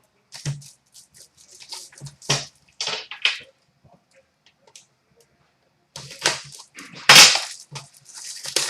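Crinkling and rustling of packaging being opened and handled: a string of short crackly rustles with soft knocks, busiest and loudest near the end.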